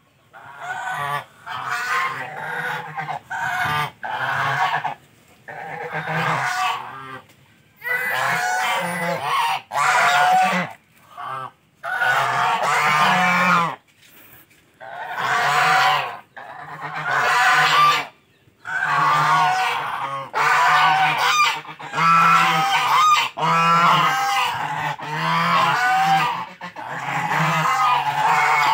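A small flock of white domestic geese honking repeatedly, loud bouts of calls broken by short pauses.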